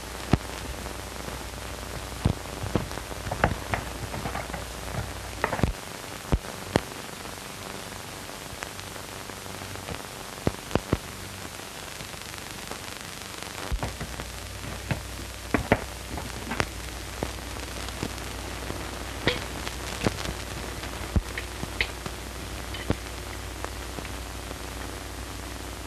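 Steady hiss and low hum of an old 1930s film soundtrack, with scattered crackles and pops. The hum drops out for several seconds in the middle.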